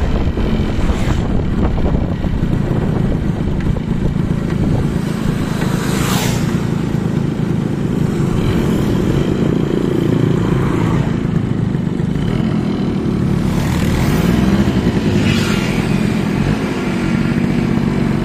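Suzuki X4 motorcycle engine running under way on a test ride, its note rising and falling a few times as the throttle changes.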